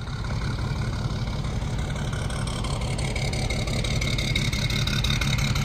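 Diesel engine of a yard truck (terminal tractor) running at idle, loud and steady, with a thin high whine held over the rumble.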